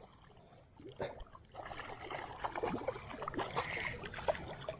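Water splashing and sloshing, irregular, as a hooked largemouth bass is brought in at the surface, with a few faint short high chirps about once a second.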